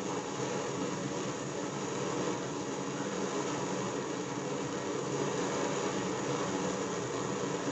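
Kerosene stove burner running on used cooking oil, a steady rushing flame noise as the oil vaporizes in the still-preheating burner. The flame is still orange, not yet burning clean and blue.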